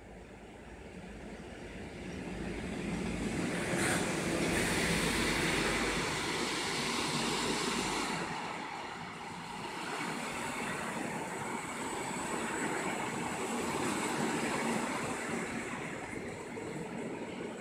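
Freight train passing close by: the 3E/1 electric locomotive grows louder and goes past a few seconds in, then a long line of container flat wagons carrying tank containers rolls by with steady wheel-on-rail noise.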